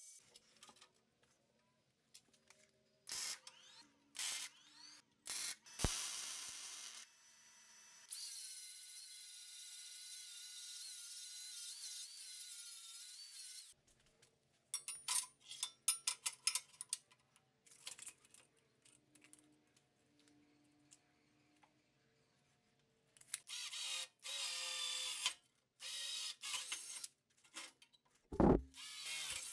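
Cordless power tools starting and stopping on steel. The tools run steadily for a few seconds at a time, the longest run about a third of the way in, with bursts of clicks and knocks of steel tubing on a steel fixture table between them. A cordless drill runs near the end, and there is a loud thump just before the end.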